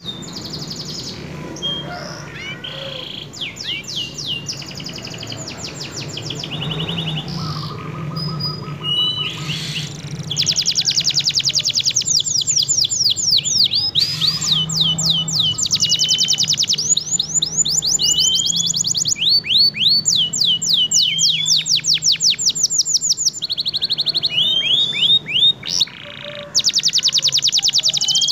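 Domestic canary singing continuously in fast rolling trills of rapidly repeated sweeping notes, broken by short rising whistles. It grows louder about a third of the way in, over a steady low hum.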